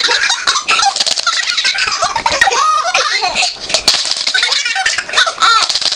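A baby laughing in a string of high squealing giggles.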